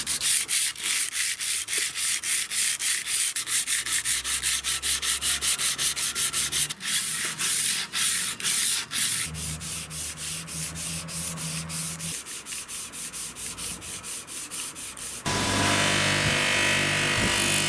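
Flat hand file rasping over the steel blade of a billhook in quick, evenly repeated strokes, several a second, smoothing out the surface after sandblasting. Near the end it cuts off suddenly into background music.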